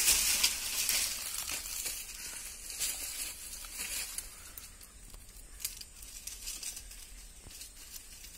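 Dry fallen leaves rustling and crackling as they are disturbed, loudest in the first second or so, then quieter with scattered sharp crackles.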